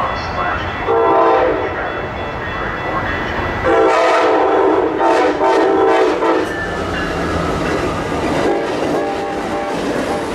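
Amtrak Pacific Surfliner passenger train sounding its horn as it approaches and passes a grade crossing: a short blast about a second in, then a longer blast from about four seconds that breaks off briefly once or twice. The horn is over the steady rumble of the train rolling by.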